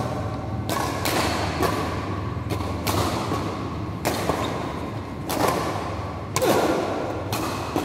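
Badminton rackets striking the shuttlecock in a doubles rally: a series of sharp smacks at uneven intervals, about one or two a second, each echoing in a large hall. A steady low hum runs underneath.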